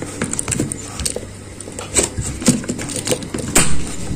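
Ignition key being pushed into a BMW E39 ignition lock cylinder, with several sharp metallic clicks and the keyring jingling.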